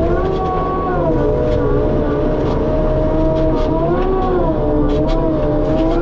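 A skid steer working a hydraulic Harley rake (power rake): a steady machine drone with a whine that dips and rises in pitch as the load changes, and scattered ticks and knocks of debris.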